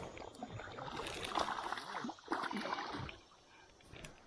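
Water splashing and sloshing as a hooked fish is reeled in toward the bank, dying down near the end.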